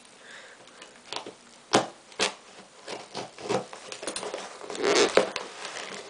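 Scissors and hands working at a parcel's tape and paper wrapping: irregular sharp snips and clicks, with a busier stretch of crinkling and rustling about five seconds in.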